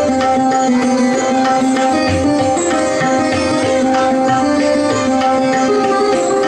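Sarod playing a melodic line in raga Kirwani, accompanied by tabla, with deep bayan strokes recurring about once a second under the melody.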